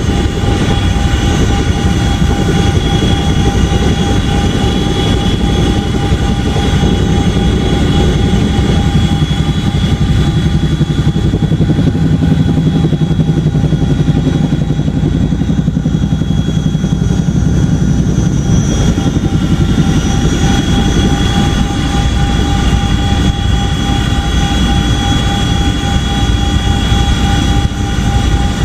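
Boeing CH-47D Chinook tandem-rotor helicopter running loud and steady: the high whine of its twin turboshaft engines over a fast low beat from the rotors.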